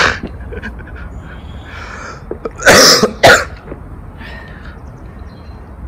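A man coughing: one long, harsh cough about three seconds in, then a short one right after.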